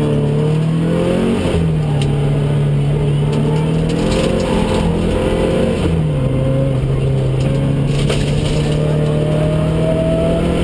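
Opel Ascona i2000 rally car's four-cylinder engine running hard under load, heard from inside the cabin. Its pitch dips sharply about one and a half seconds in and again about six seconds in, then climbs steadily toward the end.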